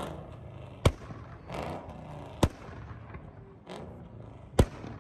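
Three loud, sharp single bangs, spaced about one and a half to two seconds apart, over a steady low rumble.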